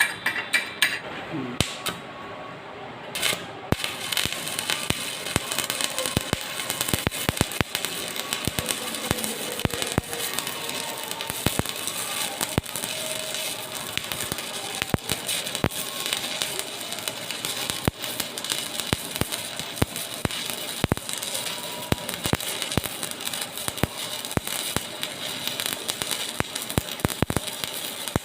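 Stick (electrode arc) welding: a steady, dense crackle and sputter of the arc burning along the weld. It starts up again about four seconds in, after a brief pause.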